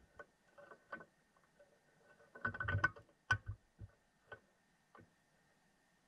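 Knocks and rattles carried through an underwater camera housing as a large shark bumps and tugs at the bait arm of a baited remote underwater video rig: a dense cluster of knocks about halfway through, then a few single knocks.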